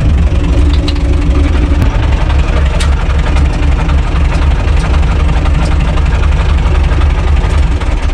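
Universal U445 DT tractor's diesel engine running steadily with a pulsing low rumble.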